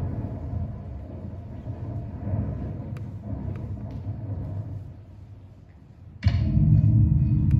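A low rumbling sound played over a speaker fades down. About six seconds in, music starts suddenly with a deep, held chord.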